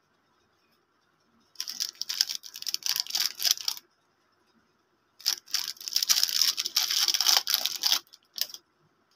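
Plastic foil wrapper of a Tota lollipop crinkling and crackling as it is handled and torn open by hand, in two spells of about two and three seconds, with a short crinkle near the end.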